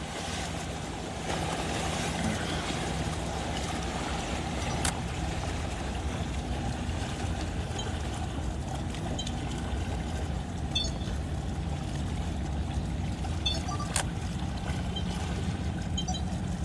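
Small waves lapping and splashing against jetty rocks, over a steady low drone.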